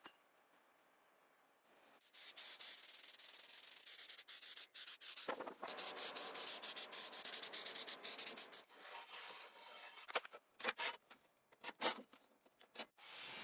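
Sanding: abrasive paper rubbed over a surface in fast back-and-forth strokes. It starts about two seconds in and breaks into shorter, separate strokes after about nine seconds.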